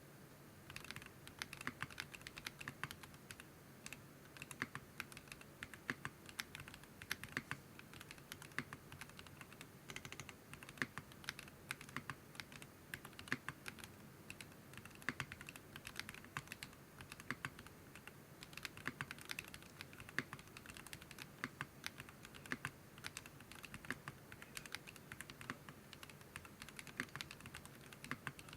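Continuous fast typing on a Geonworks F1-8X mechanical keyboard with Zaku switches, a 1mm aluminium plate and PBT keycaps. Dense, closely spaced keystroke clicks run without pause.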